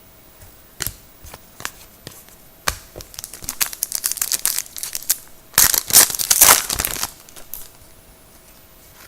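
A trading card pack's foil wrapper being torn open and crinkled by hand: a few sharp ticks at first, then a run of crackling and tearing that is loudest about six seconds in.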